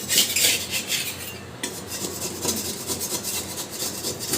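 Spatula scraping in quick repeated strokes across the bottom of a cooled karahi, working loose pan-fried fish that has stuck to the pan. There is a brief pause about a second and a half in.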